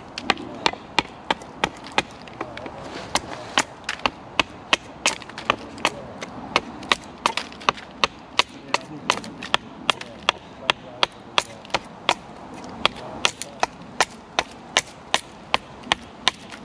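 A hatchet chopping down the length of a wooden stave, a hazel bow stave, held upright on a log chopping block. Sharp, even strikes come about two to three a second without a break, each taking a shaving off the wood.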